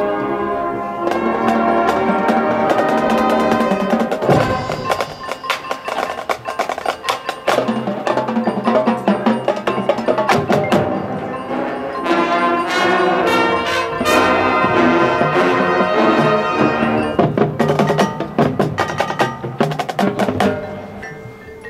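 High school marching band playing a field show, with the front ensemble's mallet percussion and chimes prominent: quick struck notes over sustained chords. The music thins out and drops in level near the end.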